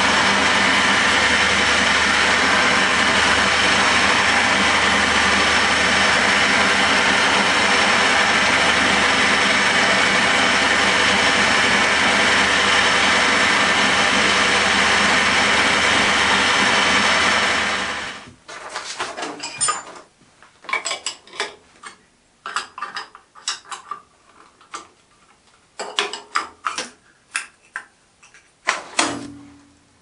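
Milling machine running steadily with a small drill bit in its chuck, drilling holes in a thin brass strip. A little past halfway its motor shuts off abruptly, and clicks and knocks follow as the clamps and workpiece are handled.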